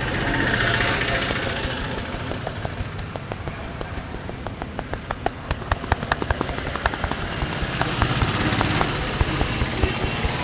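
Quick, uneven hand slaps and pats on a customer's head and shoulders during a head massage, several a second, growing denser and louder after a few seconds. Street traffic noise runs underneath.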